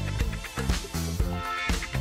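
Background music with a steady beat, about two beats a second, over a bass line.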